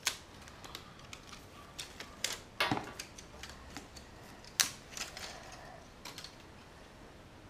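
Plastic wrapping crinkling and clicking in scattered sharp snaps as it is pulled off a coiled Lightning cable; the loudest snap comes about four and a half seconds in.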